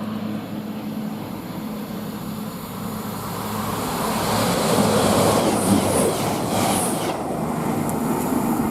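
A train passing on the line: a steady low hum with the rush of wheels on rail growing louder from about three seconds in, and a couple of brief high squeals at its loudest.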